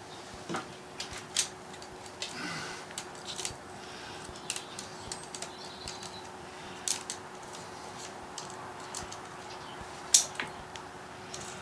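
Irregular light clicks and taps of small parts and tools being handled during hands-on work on a chainsaw, with one sharper click about ten seconds in. A faint steady hum runs underneath.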